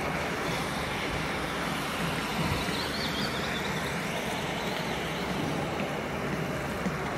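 Steady, even rushing background noise of an airport terminal hall, with no clear single source standing out.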